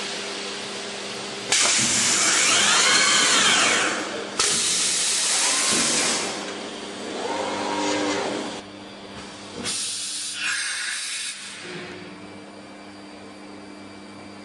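Routech OIKOS CNC timber-beam machining centre cutting into a wooden beam. There are four loud, noisy cutting passes, the first two the loudest, some with a tool whine that rises and falls in pitch, over a steady machine hum. Only the hum remains near the end.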